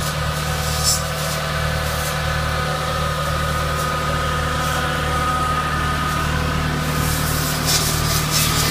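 Orchard tractor's diesel engine running steadily while its mounted hydraulic contour pruning saws run, with short crackles of branches being cut about a second in and again near the end.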